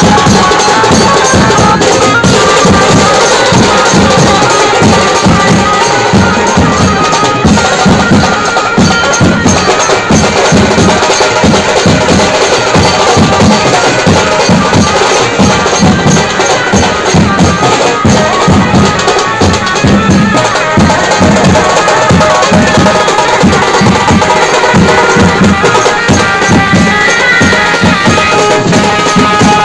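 Nashik kawadi band playing loud, fast drumming: big double-headed dhol drums struck with wooden mallets, sets of metal tom drums and cymbals. A melody line holds notes over the drumming.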